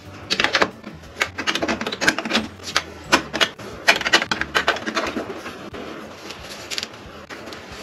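Plastic Duplo marble-run bricks and track pieces clacking and clicking as they are set and pressed into place, a quick irregular run of sharp clicks for the first five seconds or so, then softer handling.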